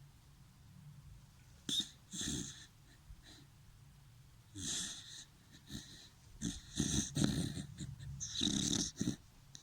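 A dachshund snoring: a series of irregular, noisy breaths that come closer together in the second half.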